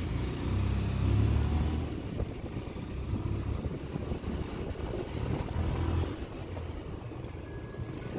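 Motorcycle engine running as the bike rides along, louder for the first two seconds and quieter after that.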